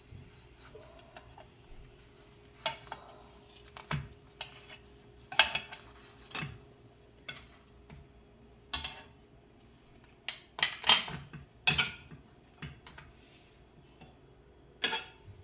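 Cooking utensil knocking and clinking against a frying pan while pancakes are tended and turned: a dozen or so irregular sharp clicks, loudest and most frequent a little past the middle.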